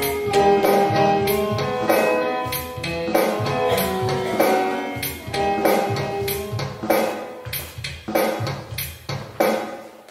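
Instrumental music with a steady drum beat and pitched notes over it, getting quieter near the end.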